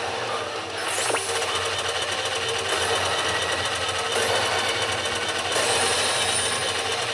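Sound effects from a Hokuto no Ken pachinko machine: a dense, fast mechanical-sounding rattle that runs steadily, with a sharp swoosh about a second in.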